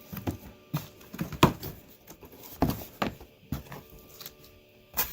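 Cardboard shipping box being worked open by hand: a run of irregular scrapes, rustles and clacks as the flaps and packing are pulled, the loudest about a second and a half in.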